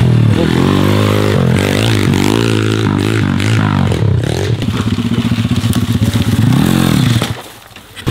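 MRF 140 TTR pit bike's small four-stroke single-cylinder engine revving up and down as it is ridden along a dirt trail, with some rattle. Cuts off abruptly near the end.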